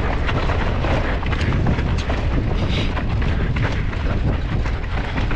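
Mountain bike riding over a rocky, chunky trail: a steady rumble with rapid clattering knocks as the tyres and frame rattle over the rocks.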